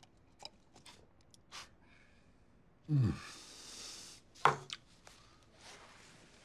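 A man's sigh: a short falling voiced breath about three seconds in, trailing into a breathy exhale, with a second brief vocal breath a second or so later. It comes after a few small clicks of a cup being sipped from and handled.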